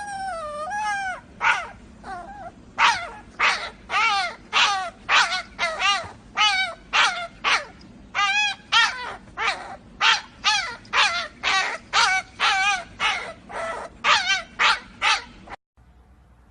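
A dog giving a long run of short, high yipping and whining calls, about two a second, each wavering in pitch; it cuts off suddenly near the end.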